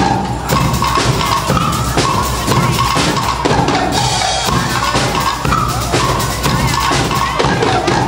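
Guggenmusik carnival band playing loudly: sousaphones and trumpets carry the tune over a drum kit beating a steady rhythm on bass drum and snare.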